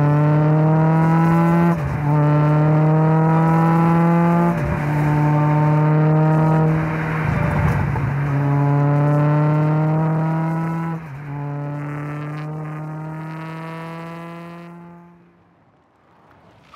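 Millington Diamond 2.7-litre four-cylinder twin-cam engine in an MST Mk2 Escort accelerating hard. Its pitch climbs in each gear, with four quick sequential-gearbox upshifts. The sound fades away near the end.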